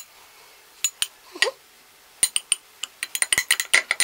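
Metal teaspoon clinking and scraping against glass as lemon zest is spooned from a glass bowl into a jar. A few taps come about a second in, then a quick run of clinks over the last two seconds.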